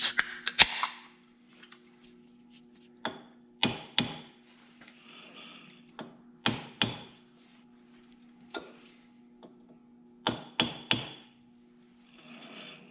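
Sharp taps of a small hammer on a part held in a four-jaw lathe chuck, about a dozen, mostly in twos and threes every couple of seconds. The part is being knocked over to run true against a dial indicator.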